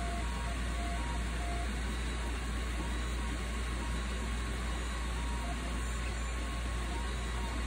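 Filament 3D printer running mid-print: a steady whir of its cooling fans over a low hum, with short, brief stepper-motor tones as the print head makes small moves.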